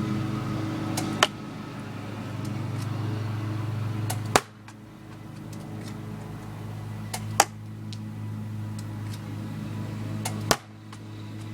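UTG 1911 full-metal spring airsoft pistol firing four single shots, each a sharp snap, about three seconds apart as the slide is cocked between shots. A steady low hum runs underneath.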